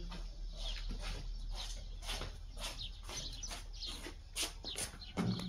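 Birds chirping: many short, high, falling chirps scattered throughout, with a few sharp knocks among them.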